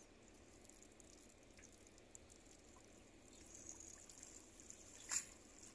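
Faint rustling of a cast net being gathered by hand, with scattered small ticks and one sharp click about five seconds in.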